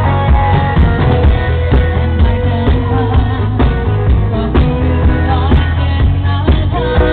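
Live pop song with a woman singing into a microphone over keyboard, drums and a steady bass line.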